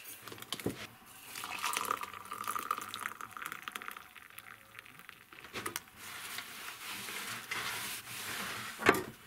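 Hot water poured from an electric kettle into a ceramic mug, a hissing, splashing stream. Near the end comes one sharp knock.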